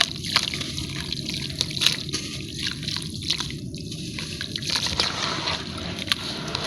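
Sand-cement cakes crumbling in water: a continuous watery trickle and slosh, with many small sharp crackles scattered throughout.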